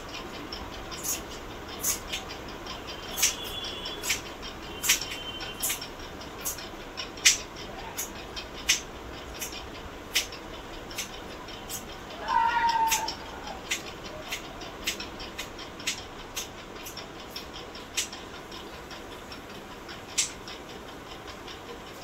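A domestic cat meows once, briefly, about twelve seconds in, over a run of sharp, irregular clicks and taps.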